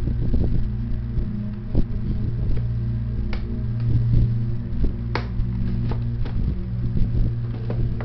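Handling noises from unboxing a Gundam model kit: scattered clicks and taps of cardboard and plastic packaging, a sharper one about three seconds in and another about five seconds in, over a steady low hum.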